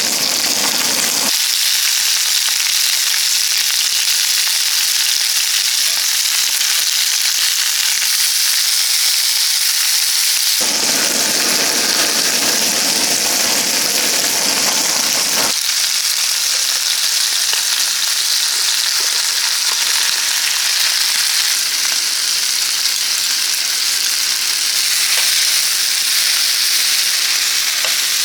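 Food frying in a pan, a steady dense sizzle. The low background under it changes abruptly about a second in, at about ten seconds and at about fifteen seconds.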